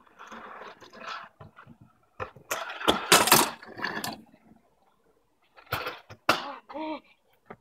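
Kick scooter clattering on alley asphalt during a trick attempt: wheels rolling, with loud knocks and rattles about three seconds in and again near the end as it lands or hits the ground.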